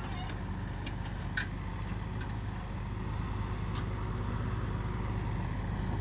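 Diesel engines of JCB 3DX backhoe loaders running steadily while digging, with a single sharp knock about a second and a half in.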